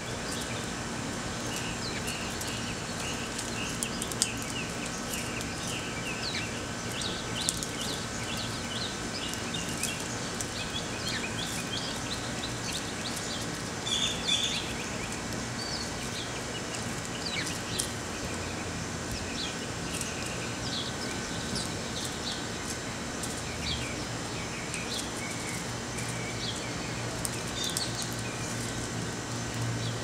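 Sparrows chirping, many short repeated chirps throughout, with a denser flurry about halfway through, over a steady background hum.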